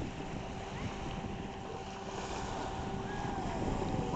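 Outboard motor of a 10 ft mini power boat running at speed, a steady engine whine carried across the water. Wind buffets the microphone with a low rumble.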